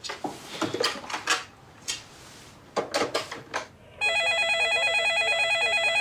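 A few quick clicks and knocks, then, about four seconds in, a telephone starts ringing with a loud, warbling electronic trill.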